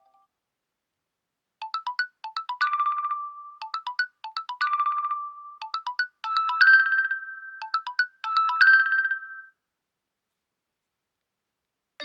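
A OnePlus 12 smartphone ringtone: a short electronic melody of quick, high notes in clusters, with a few longer held notes. It starts after a brief pause and ends about two and a half seconds before the close.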